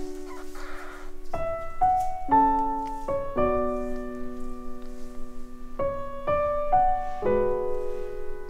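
Background piano music: a slow melody of single struck notes and chords, each note ringing on after it is played.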